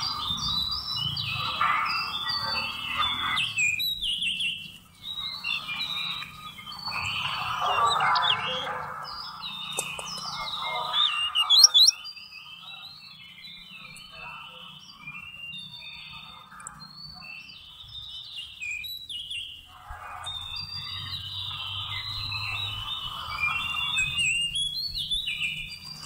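Magpie-robin singing: a long run of varied whistled and chirping phrases, with a loud burst of sharp notes about twelve seconds in, a quieter stretch after it, and fuller song again near the end.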